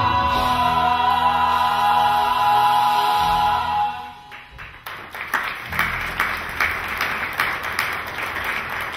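The final held sung note of a stage duet, with musical accompaniment, dies away about four seconds in. About a second later the audience breaks into applause.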